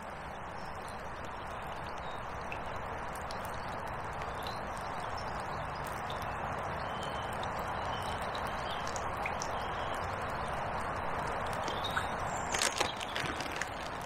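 Steady rain falling on the river and on a hooded jacket close by, an even hiss that swells slightly. A few sharp clicks and rustles come near the end.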